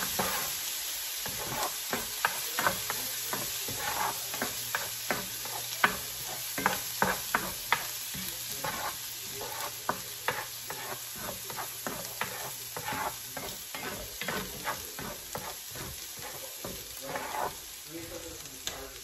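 Minced garlic sizzling in hot pork fat and coconut oil in a cast-iron skillet as it sautés to brown, with a spatula scraping and knocking against the pan in irregular strokes as it is stirred.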